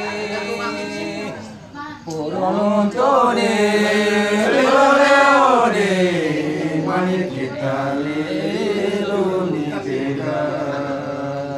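Men singing a traditional Manggarai song (dere landu) in a chant-like style. A voice carries long notes that slide up and down over a steady, held low note, growing loudest a few seconds in.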